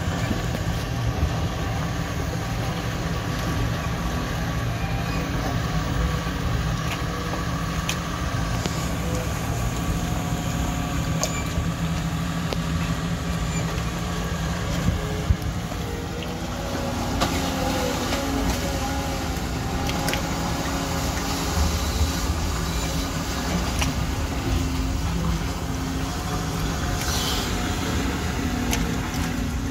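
Heavy excavator diesel engine running steadily under working load, with a few faint clanks.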